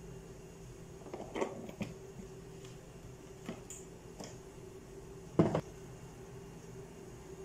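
Kitchen handling sounds at a cooker on a gas stove: a few light knocks about a second in, then one sharper clunk past the five-second mark, over a steady low hum.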